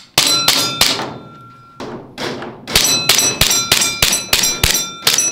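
VFC SIG AIR M18 gas blowback airsoft pistol firing a string of shots, each a sharp crack with the slide clacking. A few spaced shots come first, then a rapid run at about four shots a second, with a metallic ringing tone hanging on between them.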